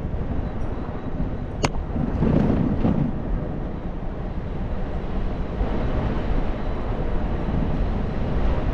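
Wind buffeting the microphone of a helmet-mounted action camera on a moving electric scooter, over steady road noise. A single sharp click about a second and a half in.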